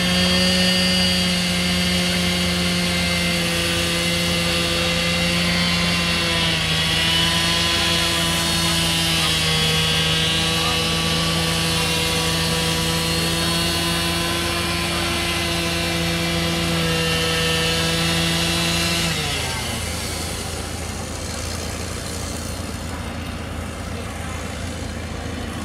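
Two-stroke chainsaw running at high speed as it cuts through old wooden crossing boards, its pitch sagging briefly a couple of times under load. About 19 seconds in it winds down, leaving a low steady engine idle underneath.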